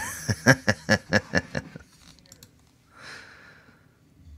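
A quick run of about ten light clicks, some five a second, stopping after just under two seconds, then a short soft breath-like hiss about three seconds in.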